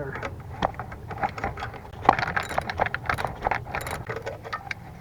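Hand tools working a fastener on the alternator's cable shroud: a ratchet wrench and metal parts giving many irregular metallic clicks and rattles, busiest from about two seconds in.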